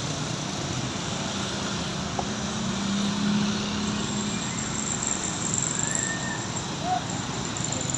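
Roadside traffic noise: a passing vehicle's low engine drone and tyre noise, swelling a little around the middle. No horn is sounded.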